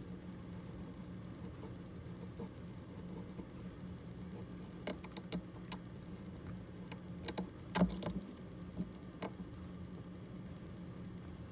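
Light clicks and ticks from a plastic alignment tool working a small trimmer potentiometer on a QCX-mini transceiver board during the receiver's low-phase alignment. Several come between about five and nine seconds in, the loudest near eight seconds, over a steady low hum.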